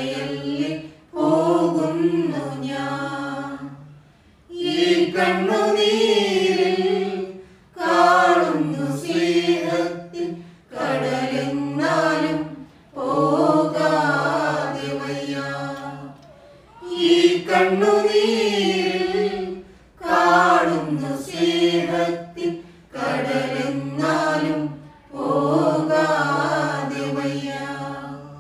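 A small church choir singing a Malayalam hymn for the departed, unaccompanied, in phrases of two to three seconds with short breaks between them.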